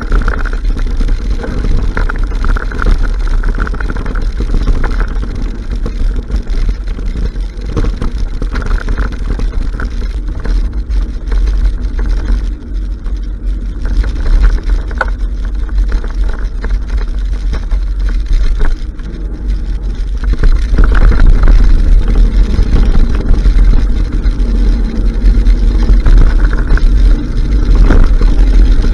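Wind buffeting the microphone of a camera on a moving mountain bike: a steady, heavy low rumble mixed with the noise of tyres rolling over a dirt trail. It gets louder about two-thirds of the way through.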